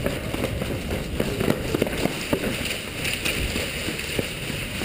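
Footsteps and gear rattle of an airsoft player on the move, picked up by a body-worn GoPro: a steady rustle with many irregular clicks and knocks.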